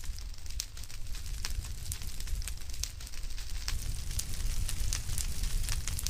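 Fire crackling: irregular sharp snaps, one or two a second, over a steady low rumble.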